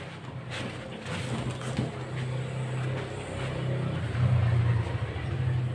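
Cardboard packing box being slid and lifted off a boxed mixing console, with scattered scrapes and rustles. Under it runs a steady low motor hum that grows louder around four seconds in.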